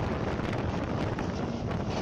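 Wind rushing across the microphone over the steady running rumble of a moving passenger train, the Hazara Express.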